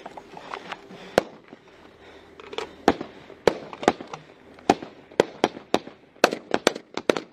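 Rifle gunfire: a string of single sharp shots at irregular spacing, sparse at first and coming faster in the second half, about a dozen in all.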